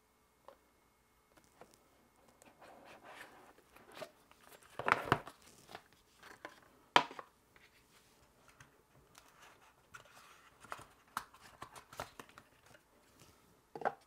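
Hands opening a small cardboard product box and handling its packaging: scraping and rustling, with scattered clicks and sharp knocks, the loudest about five and seven seconds in. Near the end comes a knock as the metal phone clip is set down on a wooden table.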